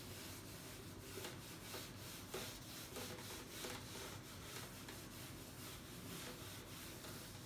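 Handheld whiteboard eraser wiping marker off a whiteboard in a series of faint, repeated rubbing strokes.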